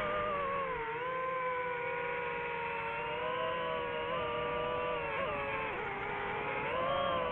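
DJI FPV drone's motors and propellers whining, the pitch sinking and rising with the throttle: a dip about a second in, another about six seconds in, then rising again near the end.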